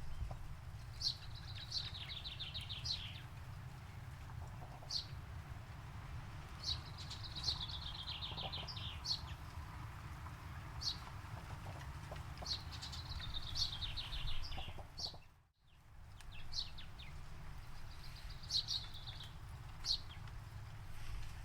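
Forest birdsong: a bird repeats a fast trilled phrase about every five to six seconds, with separate short high chirps between, over a steady low rumble. The whole sound drops out for a moment about fifteen seconds in.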